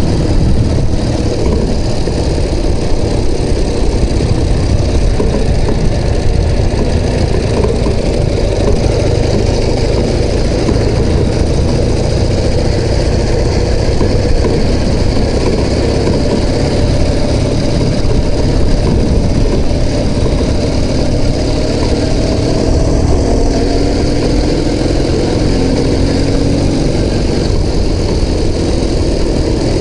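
Ural Tourist sidecar motorcycle's flat-twin engine running steadily while riding a dirt track, mixed with wind noise on the bike-mounted microphone. The engine note climbs slowly in the second half.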